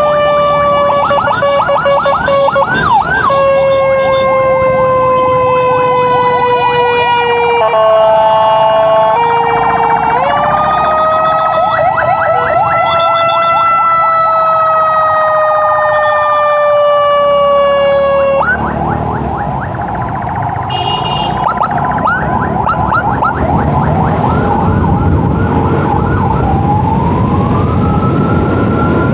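Emergency sirens clearing traffic for an ambulance: a long, steady siren tone that shifts pitch a few times, with a fast yelping siren over it. About two-thirds of the way through, the steady tone stops, and the yelping goes on with a rising wail near the end.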